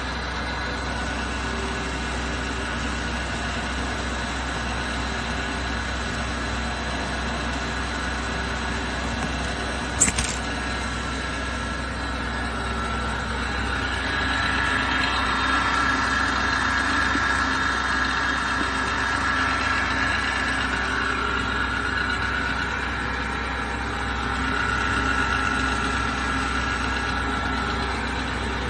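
Metal lathe running steadily: a motor hum with a few steady tones, rising in level for a stretch in the middle and again near the end. One sharp click about ten seconds in.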